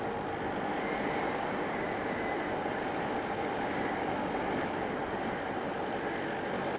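Steady wind and riding noise of a motorcycle at about 70 km/h, picked up by a helmet-mounted external microphone with the visor closed. The microphone is wrapped in cotton and surgical tape to cut the wind noise.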